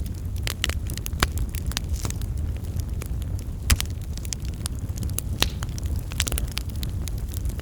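Fire crackling in a fireplace: irregular sharp pops and snaps over a steady low rumble of the flames, with louder pops about a second in and near the middle.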